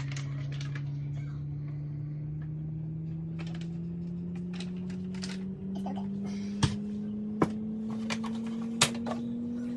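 A steady machine hum slowly rising in pitch, with a few sharp clicks and knocks of items being handled in the second half.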